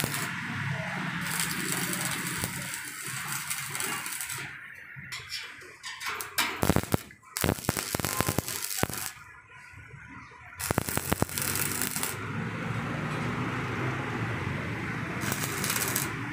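Stick welder's arc crackling and sizzling as steel scrollwork is welded onto a gate frame. Steady at first, it breaks up after about four seconds into short arc strikes and sharp metallic clicks with pauses between them, then runs steadily again from about ten seconds in.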